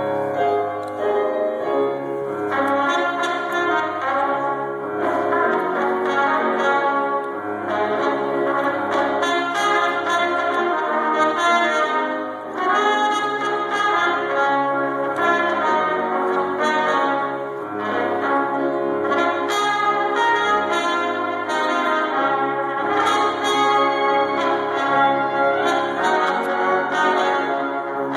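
A small brass group, trombone and trumpet among them, playing a tune together, with a low bass line moving note by note under held melody notes.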